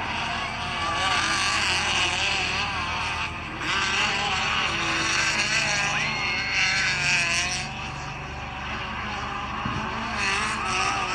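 Midget race cars' engines running flat out on a dirt oval, several engines at once, their pitch rising and falling as the cars lap the track. The sound is loudest for most of the first seven seconds, then eases as the pack moves away.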